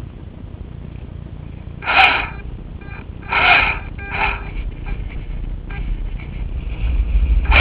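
Gusty wind buffeting the microphone as a low, steady rumble that grows louder in the second half, broken by four short, loud bursts of noise, each about half a second long.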